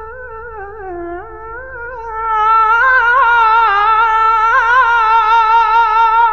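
Male copla singer holding one long, high wordless note with a wide vibrato, swelling louder about two seconds in: the drawn-out final note of the song.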